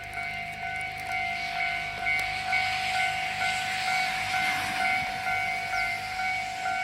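Japanese railway level-crossing warning bell ringing the familiar "kan-kan", about two strikes a second, steadily. A rushing noise swells in the middle as a train passes over the crossing.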